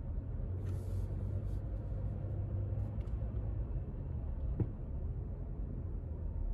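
Steady low engine and road rumble heard from inside a moving car's cabin, with a faint brief hiss about a second in and a short click a little after four seconds.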